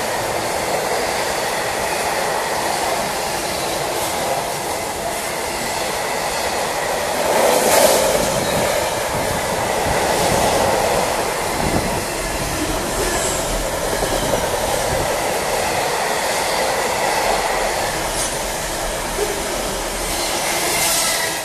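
Freight train of intermodal container flat wagons rolling past close by: a steady rumble and rattle of wagon wheels on the rails. It swells briefly about eight seconds in and again near the end.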